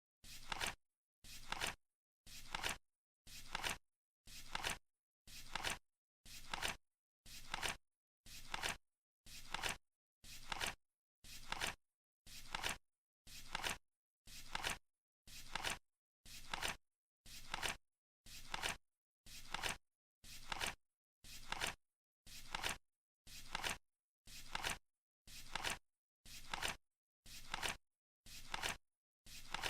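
Flip-clock timer ticking: one short, crisp flap of a flipping digit card every second, each swelling briefly and ending sharply, in a perfectly steady beat.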